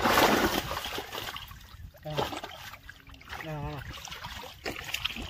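Muddy shallow water splashing hard as a hand grabs a thrashing sailfin catfish, loudest at the very start and dying away within about a second, followed by lighter sloshing.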